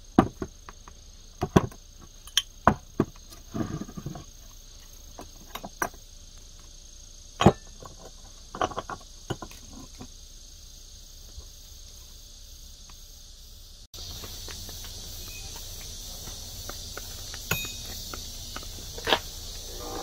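A rusty steel pipe wrench handled on a wooden tabletop: scattered sharp knocks and clicks as it is turned over, set down and its jaw and adjusting nut worked. The clicks thin out over the last third.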